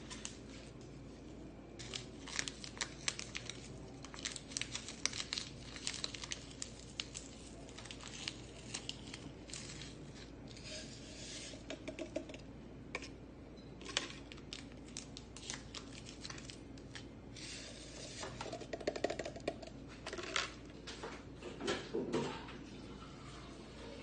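Plastic stick packets of Maxim instant coffee mix crinkling and tearing open, with many sharp crackles and scattered clicks against a glass tumbler.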